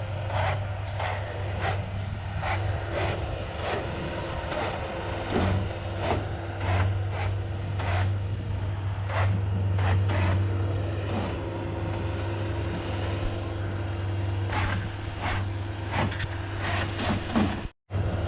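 Bobcat S185 skid-steer's diesel engine running steadily under load while it drives a homemade hydraulic bale shredder, with frequent irregular knocks and rattles. The sound cuts out for an instant near the end.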